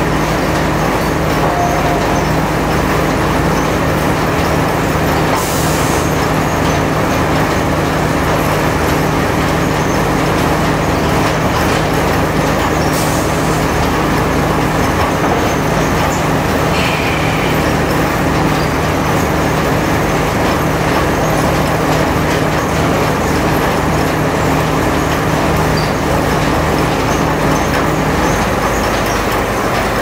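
Sawmill machinery running with a steady loud drone and hum; the hum shifts near the end.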